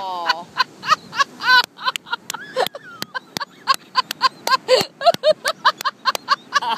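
People laughing in a rapid, uneven run of short pitched bursts, trailing off from a falling shout just before.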